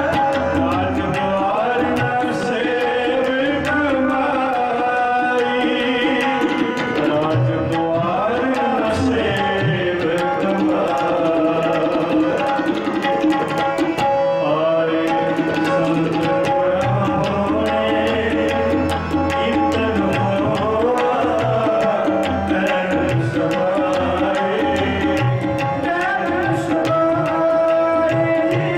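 Sikh kirtan: tabla playing a steady rhythm under sustained harmonium chords, with a man singing the shabad in drawn-out phrases.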